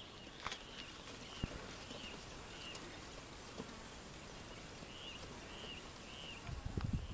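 Steady high-pitched buzzing of insects, with short repeated chirps over it. A few low thumps come in near the end.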